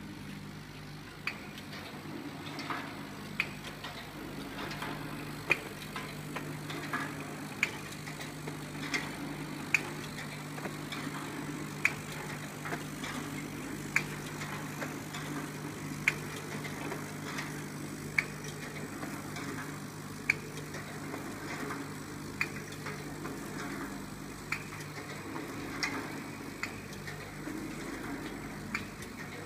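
BTB-300A automatic cellophane overwrapping machine running: a steady motor hum with a sharp mechanical clack about every two seconds and lighter ticks between, repeating evenly as it cycles.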